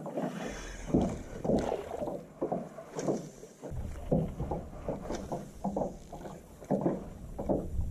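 Small wind-driven waves lapping and slapping against the hull of a fishing boat in uneven short splashes, two or three a second. Wind noise rumbles on the microphone from about halfway through.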